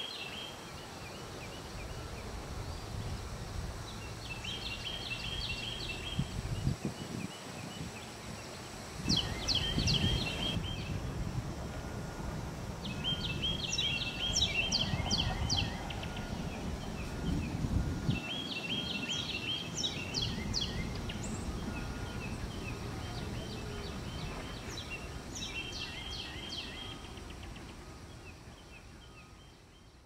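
Carolina wren and northern cardinal singing: loud bouts of quickly repeated, ringing song phrases, about six bouts spaced four to five seconds apart.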